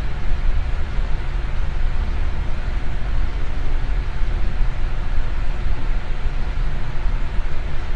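Electric fan running steadily: a constant whoosh of air with a low rumble and faint motor hum, used as white noise for sleep.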